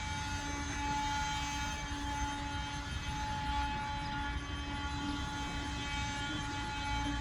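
Whelen WPS-2809 electronic outdoor warning siren sounding a steady, unwavering tone, heard during its test.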